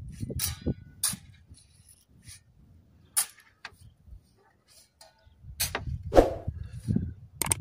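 A long-handled digging tool striking and scraping into a pile of coarse sand: about six short, sharp strokes at irregular intervals, over a low rumble.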